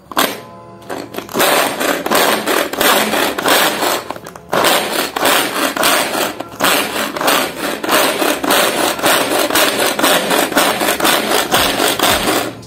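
Manual pull-cord vegetable chopper chopping onions. Each pull of the string spins the blades inside the plastic bowl with a loud whirring rattle, repeated pull after pull, with a short break about four and a half seconds in.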